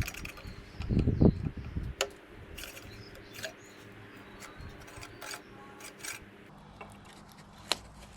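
Hand work on a cylinder mower: metal rubbing and scraping, a heavier rumbling scrape about a second in, and a few sharp clicks of tools or parts.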